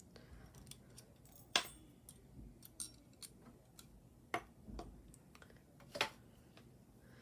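Small metal rings clicking and clinking faintly as they are handled, with three sharper clicks about a second and a half, four and a half, and six seconds in.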